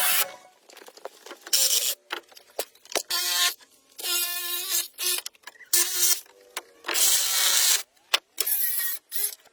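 A small electric power tool running in about six short bursts, each a hiss with a steady hum, with clicks in between.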